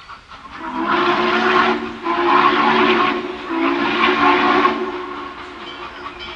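Chime whistle of an approaching Norfolk & Western steam locomotive, a steady low chord that swells loud three times, with a breathy hiss on each swell, then fades.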